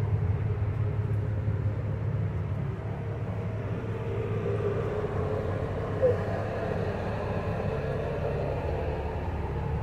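Rear-mounted Cummins L9 diesel engine of an IC RE school bus idling, a steady low rumble heard inside the bus cabin. A short sharp sound about six seconds in.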